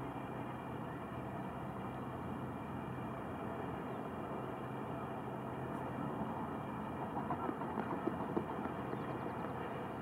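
Steady outdoor background rumble, with a short run of irregular splashes about seven to eight and a half seconds in as mute swans flap and chase across the water.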